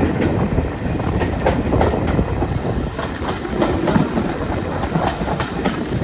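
Passenger carriage running along the track, wheels rumbling and clicking over the rail joints.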